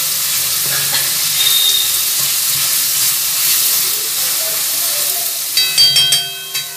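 Garlic and ginger sizzling steadily in hot oil in a steel kadhai as they are stirred with a spatula. Near the end comes a quick run of ringing metal clanks as the spatula knocks against the pan.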